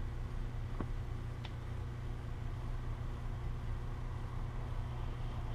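Steady low hum of room noise, with two faint ticks about one and one and a half seconds in.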